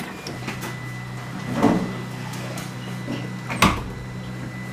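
Switched-on Wanhao i3 Plus 3D printer humming steadily with a faint high whine. Two short knocks, the louder about three and a half seconds in, come from work on the machine.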